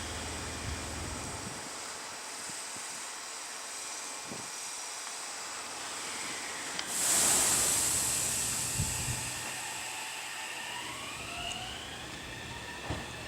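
Meitetsu 3150 series electric train starting to move: a sudden loud hiss of air about seven seconds in that fades over several seconds, then a rising electric motor whine near the end as the train begins to accelerate.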